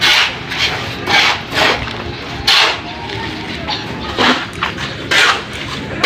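Shovels scraping and scooping into a pile of sand and gravel: a series of short gritty scrapes, one every second or so at an uneven pace.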